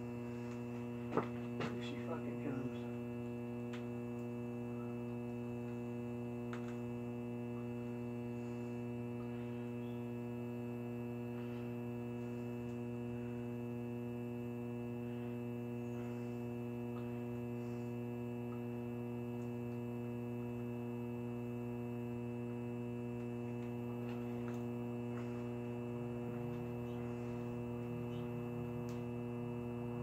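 Old air-conditioner compressor humming steadily on mains power while it overheats and smokes, with a few sharp clicks a second or two in.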